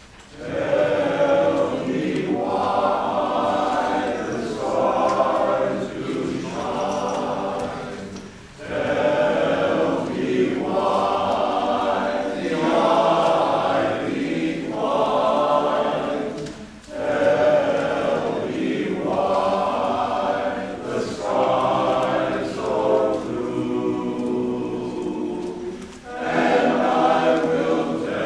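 Men's chorus singing in sustained phrases, with three brief breaks for breath between four long phrases.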